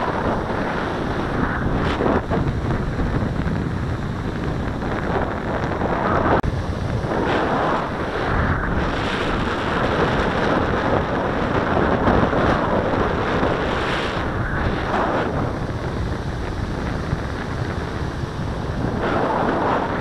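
Strong onshore wind buffeting the microphone in gusts, over the steady wash of surf breaking on the beach.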